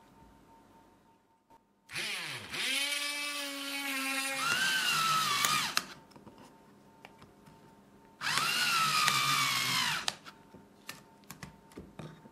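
A small electric power tool's motor runs twice. About two seconds in it spins up with a rising whine, then drops and wavers in pitch as if under load, and stops about six seconds in. It runs again from about eight to ten seconds, and a few light clicks follow near the end.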